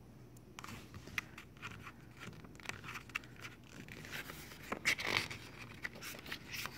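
Paper pages of a CD album's photo book being handled and turned: soft rustles and scrapes of paper, with a few louder page flips about five seconds in.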